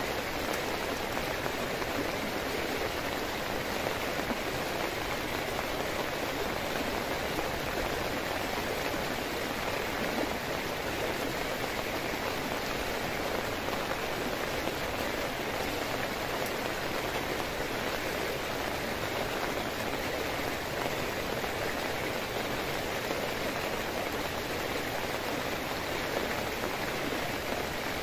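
Heavy rain falling steadily, an even wash of noise that never lets up.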